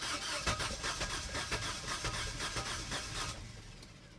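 2007 Suzuki Forenza's four-cylinder engine being cranked by the starter motor, turning over in quick, even pulses for about three seconds without catching, then stopping. It cranks but won't start after the engine overheated.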